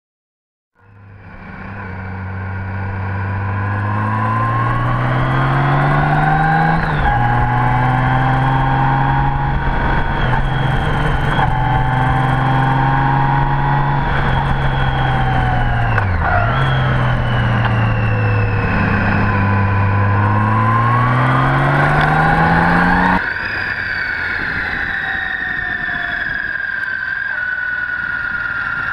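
Honda GL1800 Gold Wing's flat-six engine pulling through the gears, its pitch climbing and then dropping sharply at each shift. It fades in within the first second. Near the end it changes abruptly to a steadier, slowly falling note.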